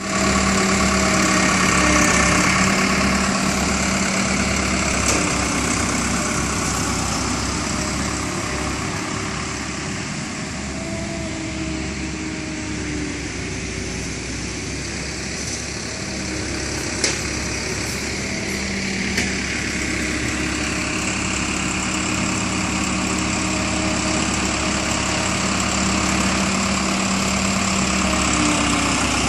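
Heavy road-paving machinery laying asphalt, its diesel engines running steadily. The sound fades somewhat toward the middle and grows louder again near the end, with a sharp click about seventeen seconds in.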